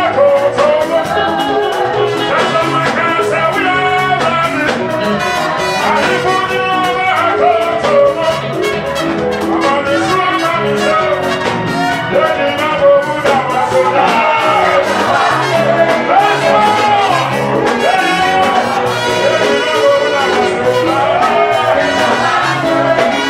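Live Pentecostal praise music amplified through a church PA: a man singing into a microphone over a band with a steady beat.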